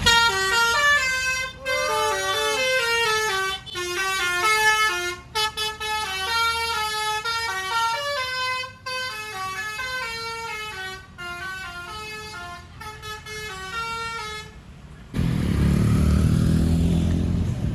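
Bus telolet basuri horn playing a melody: several pitched tones stepping quickly from note to note for about fifteen seconds. It stops, and a loud low rumble fills the last few seconds.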